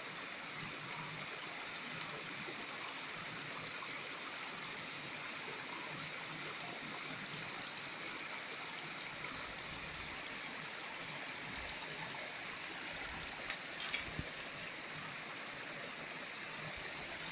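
Shallow stream running steadily over rock, with a few brief splashes about three-quarters of the way through as a metal gold pan is swirled and tilted in the water.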